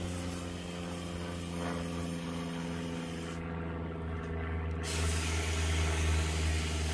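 Garden hose spray nozzle hissing as water runs into empty aluminium soda cans, louder from about five seconds in. Under it runs a steady low mechanical hum.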